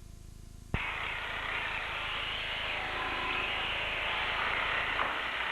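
A low hum, then a sharp click less than a second in, and a steady, loud hiss of static from the recorded broadcast audio.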